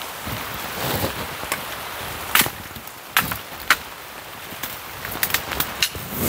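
Dry wood and twigs cracking and snapping in irregular sharp clicks, loudest about two and a half seconds in and again with a quick cluster near the end, over a steady hiss of rain.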